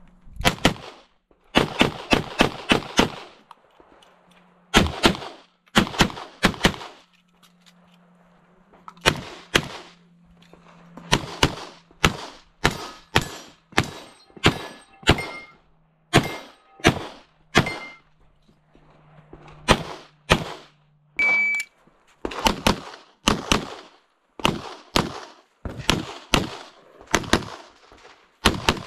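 Pistol fire on a practical-shooting (IPSC) stage: quick pairs and strings of shots, broken by short pauses. A short ringing note sounds a little after two-thirds through.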